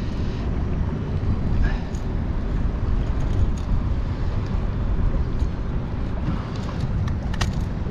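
Steady wind rumble on the microphone with water slapping against the kayak, and a few faint clicks from the hooks and net being handled.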